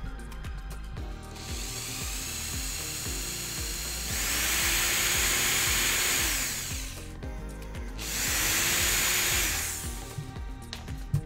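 Cordless drill boring a hole through a thin wooden strip. It runs twice, each time spinning up and winding down, over background music.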